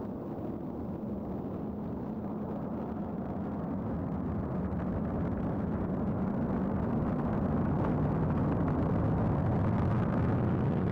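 Low, steady rumble of a Delta IV Medium-Plus (4,2) rocket in its first seconds of flight after liftoff, its RS-68 main engine and two strap-on solid rocket motors firing; the rumble grows slowly louder.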